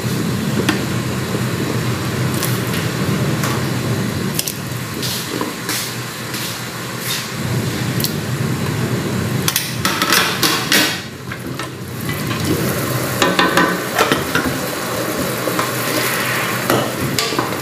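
Sliced radish dropped by hand into a steel pot of broth: scattered splashes and knocks, with a denser cluster partway through, over a steady hiss.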